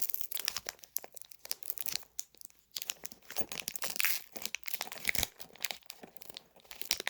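Foil trading-card booster pack being torn open and its wrapper crinkled: a dense run of sharp crackling and tearing.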